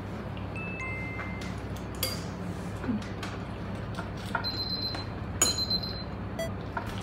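Chopsticks tapping and clinking against a ceramic bowl: scattered sharp clicks, a few of them ringing briefly, over a steady low room hum.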